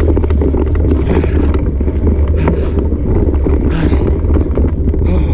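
Wind buffeting the microphone of a camera on a moving bicycle, with a steady low rumble and frequent clicks and rattles as the bike rolls over a bumpy grass trail.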